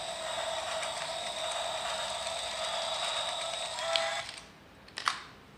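Toy train running with a steady mechanical whir and fine ticking, which stops about four seconds in with a click. A second sharp click comes about a second later.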